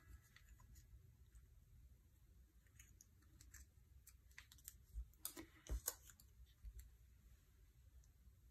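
Near silence with a few faint clicks and taps, the clearest about five to six seconds in, from small die-cut paper pieces and fingernails as a paper leaf is pressed onto a paper flower.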